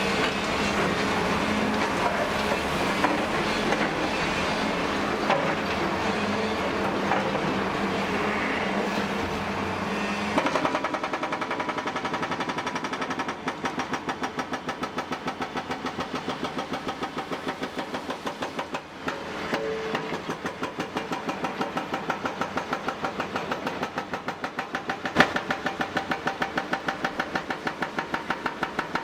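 A machine running steadily with a low hum. About ten seconds in the sound changes to a regular pulsing of roughly three to four beats a second, with one sharp click near the end.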